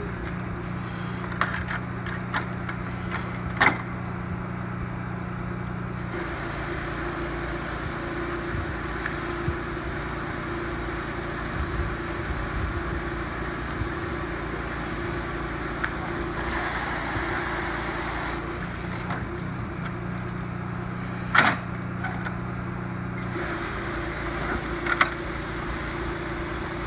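Water mist lance spraying into a car's engine bay to put out an engine fire: a steady hiss over the drone of a pump engine, with a few sharp cracks, the loudest about twenty seconds in.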